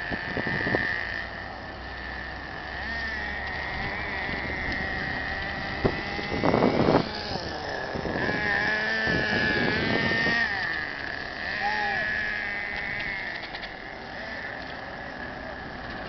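Electric RC cars' brushless motors whining, the high pitch rising and falling as the throttle is worked. A burst of rough noise about six to seven seconds in is the loudest moment.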